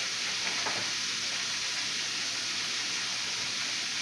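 Chicken livers deep-frying in hot oil in a skillet, a steady sizzle.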